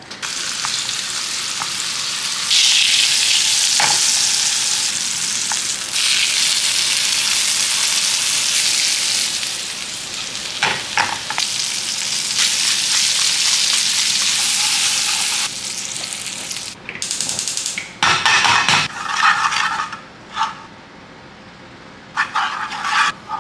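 Filet mignon medallions sizzling in oil and butter in a frying pan, the sizzle jumping louder a few seconds in. Near the end, a wooden spoon scrapes and stirs in the pan in short irregular strokes.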